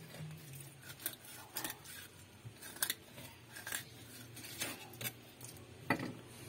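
A steel knife scrapes and clicks against a wooden chopping block as a snakehead fish fillet is cut away from its skin. The strokes are short and irregular, with a sharper knock on the block near the end.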